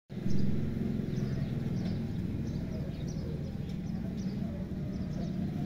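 Background ambience: a steady low rumble, with small birds chirping faintly and repeatedly over it.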